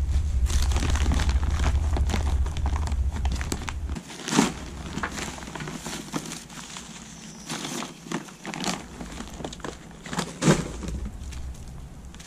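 Plastic stretch wrap, packing paper and bubble wrap crinkling and rustling as they are pulled off exhaust pipes, with a few sharper crackles. A low rumble runs underneath and stops about four seconds in.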